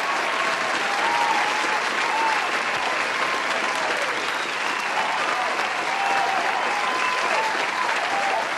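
Applause sound effect: a large crowd clapping steadily, with voices cheering over the clapping.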